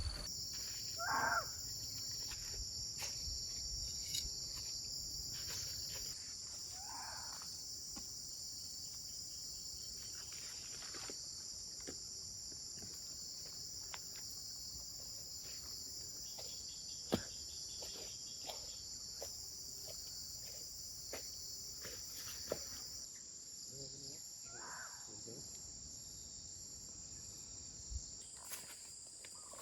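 Steady high-pitched chorus of insects trilling. Scattered faint clicks and three short, brief calls from some other animal sound over it.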